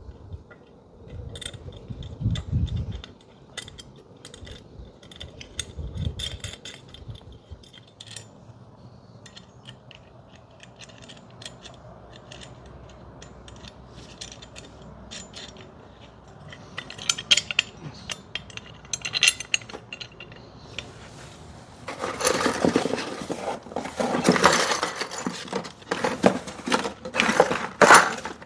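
Metal screws and bracket hardware clinking and scraping as they are refitted by hand, with scattered light clicks and two low thumps early. Louder, busier metal clattering and scraping fills the last several seconds.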